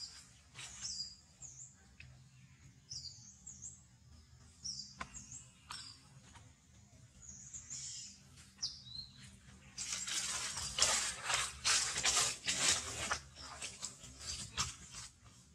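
Small birds chirping, short high calls repeated every second or so. About ten seconds in, a louder rustling noise lasts about three seconds.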